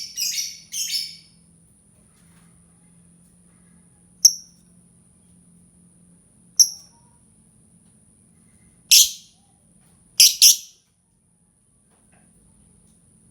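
Lovebird calling: a quick run of shrill chirps at the start, then single sharp, high calls every two or three seconds, with a double call near the end.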